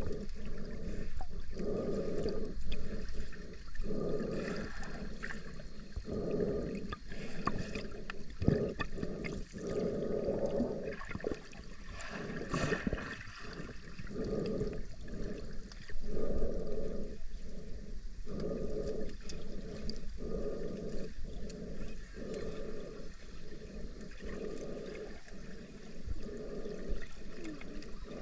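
Rushing, splashing water, swelling and easing in pulses about once a second.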